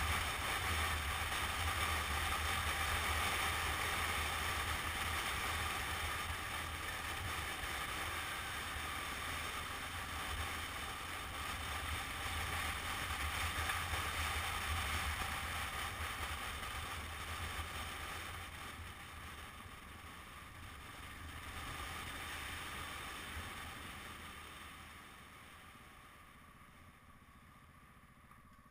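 Supermoto motorcycle ridden at speed: a steady rush of wind over the camera microphone with the engine's low drone beneath. The sound dies down over the last several seconds as the bike slows at the roadside.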